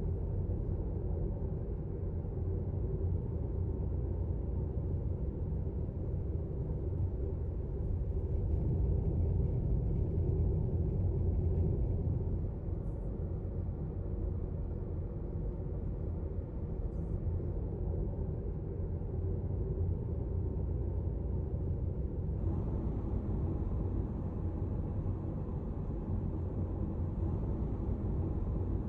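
Steady low rumble of road and engine noise inside a moving car. The higher hiss steps up suddenly about two-thirds of the way through.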